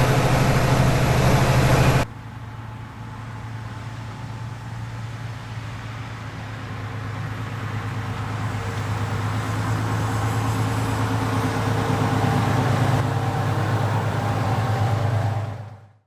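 Large tractor diesel engine running steadily under load. It is loud and close at first; after a sudden cut about two seconds in it is quieter, slowly grows louder, then fades out near the end.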